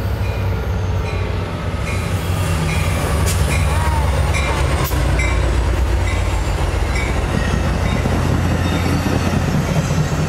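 Amtrak California passenger train passing close by: the EMD F59PHI diesel locomotive rumbles past, followed by its bilevel cars with steady wheel and rail noise. The rumble grows louder about two seconds in.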